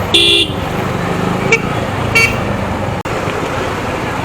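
Vehicle horn: one short blast just after the start, then two brief toots around the middle, over steady road traffic noise.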